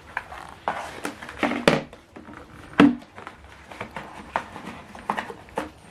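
Irregular light knocks, clicks and rustles of things being handled and taken from a keyboard's packaging, with one louder knock about three seconds in.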